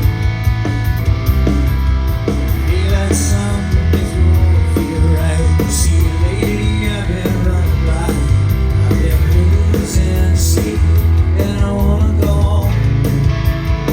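Rock band playing live and loud, with heavy bass, drums and electric guitar, a singing voice, and cymbal crashes a few times.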